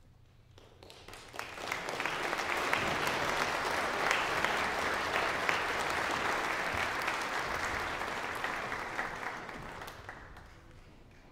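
Audience applauding, the clapping swelling over the first couple of seconds, holding steady, then dying away near the end.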